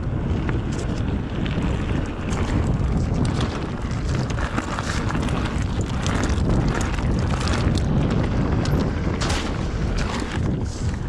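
Wind rushing over the microphone while riding an electric mountain bike on a rough trail, with tyre noise and frequent sharp rattles and knocks from the bike over the ground.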